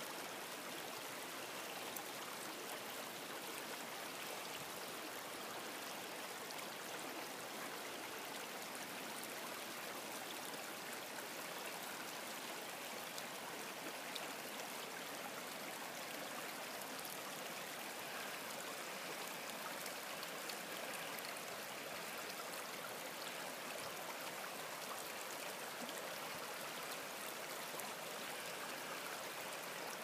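A stream of running water, a steady, unbroken rush.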